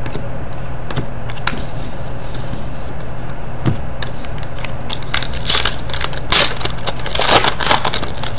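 Foil wrapper of a trading-card pack crinkling and tearing open. It starts with a few light clicks of cards being handled and gets to its loudest crackling in the last three seconds. A steady low hum runs underneath.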